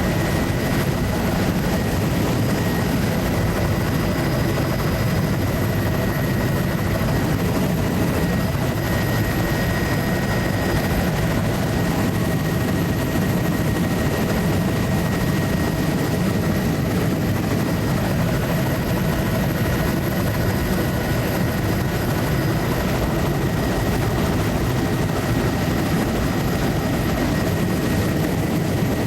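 Steady drone of a survey aircraft's engine and rotor or propeller heard from inside the cabin in level cruise flight, unchanging throughout.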